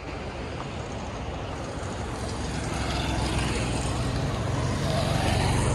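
Motorcycle engine running while riding, a steady low rumble under a rushing hiss that grows louder after a couple of seconds.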